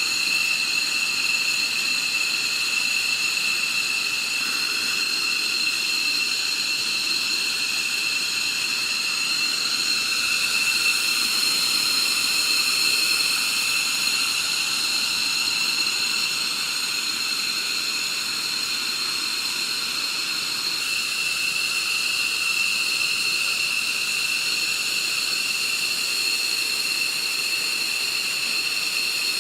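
Fighter jet engines running on the ground with a steady high-pitched whine over a rushing hiss. The pitch and loudness hold steady throughout, as at idle rather than a takeoff run.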